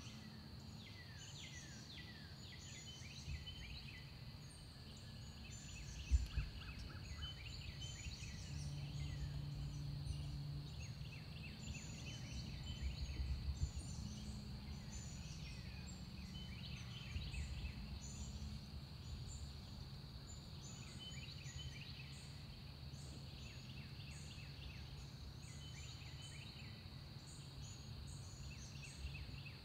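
Eastern wild turkey gobbler gobbling over steady songbird chirps and trills in the background. A low thump comes about six seconds in.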